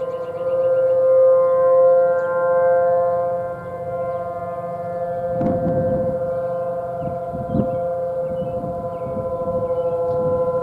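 Distant ACA outdoor warning sirens (Banshee and P-10) sounding a steady alert tone in a full siren-system test, swelling and easing in loudness. A few low thuds come partway through.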